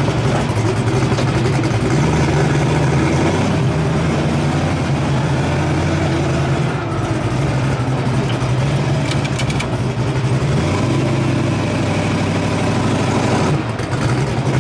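Turbocharged LS V8 of a methanol-burning Fox Body Mustang street car running while it drives slowly in traffic, heard loud and steady from inside the cabin with the window down. Its low drone changes note about two-thirds of the way through.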